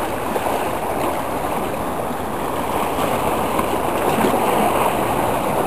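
Seawater washing and foaming around the boulders of a rock groyne, a steady rushing churn that swells a little about four seconds in.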